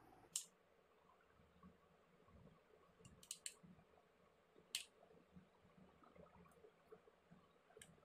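Metal tweezers prising at a Samsung mobile phone's plastic rear housing, its snap clips giving a handful of sharp, separate clicks, with a quick run of three a little past three seconds in.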